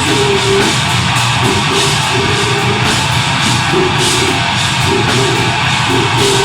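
Deathgrind band playing loud and live: heavily distorted guitars and bass riffing over drums and a constant wash of cymbals.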